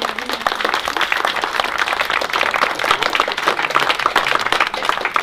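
A small crowd applauding: many hands clapping quickly and densely, with no single clap standing out.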